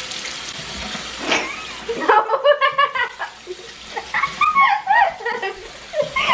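Bathroom sink tap running into the basin while water is splashed onto a face. From about two seconds in, giggling and laughter take over.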